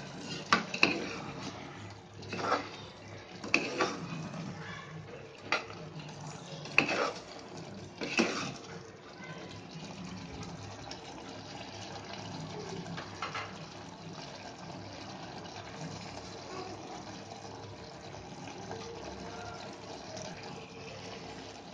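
Chicken curry bubbling in an open aluminium pressure cooker over a high flame, a steady wet hiss. In the first half a metal ladle stirring the curry knocks and scrapes against the pot about seven times.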